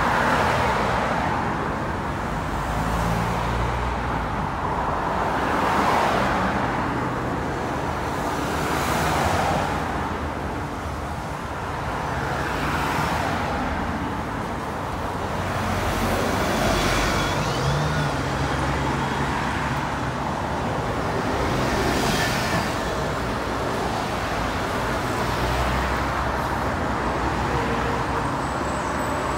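Road traffic going past: cars, vans and a double-decker bus follow one another, each passing as a swell of tyre and engine noise every few seconds.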